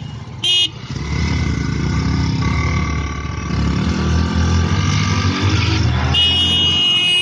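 Two single-cylinder motorcycle engines, a 150 cc Yamaha FZ-S V2 and a 100 cc Hero Passion Pro, revving hard and surging as they strain against each other in a rope tug of war. A horn gives a short toot just after the start and a longer steady honk near the end.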